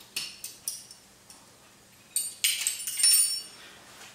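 Small metal parts clinking as they are handled: a few light clicks, then about a second of clustered metallic clinks with a thin ringing tone.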